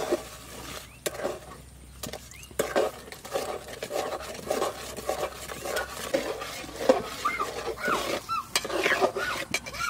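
Metal spoon stirring and scraping in a cooking pot of curry, with frequent short clinks and scrapes.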